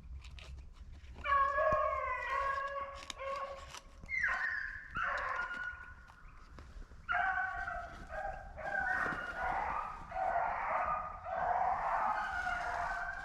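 A pack of rabbit-hunting hounds baying in long, drawn-out cries while running a rabbit's track, starting about a second in and overlapping as more dogs join toward the end.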